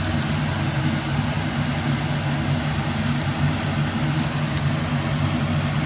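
A steady low mechanical hum, with an even hiss over it.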